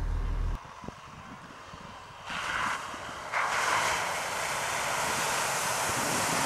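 A low engine drone heard from inside a vehicle cuts off about half a second in. After a quieter stretch, a steady rushing of water and mud sprays up as a four-wheel-drive SUV ploughs through a flooded bog track, rising about two seconds in and louder from about three seconds, with wind on the microphone.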